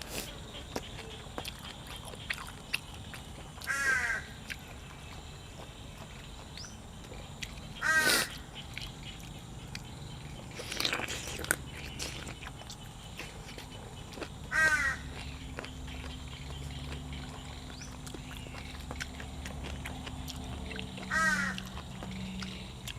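A crow cawing outdoors: five short, harsh caws a few seconds apart.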